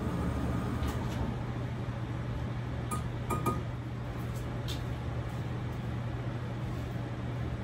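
A steady low mechanical hum, with a few light clinks of kitchen utensils about three seconds in.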